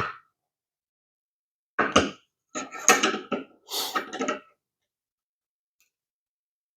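Clicks and clatter of the brass catcher's clamp, plate and frame being handled and fitted together: a sharp click at the start, a knock about two seconds in, then a run of clattering for about two seconds.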